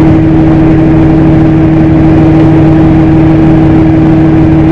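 Tractor engine running steadily under load, heard from inside the cab, a constant drone with a steady low hum and a higher tone over it.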